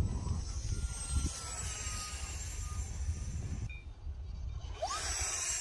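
High, steady whine and rush of the twin 40 mm electric ducted fans of an E-flite SR-71 Blackbird RC jet in flight, with gusty wind rumbling on the microphone. The whine drops out for about a second past the middle, then comes back with a short rising tone.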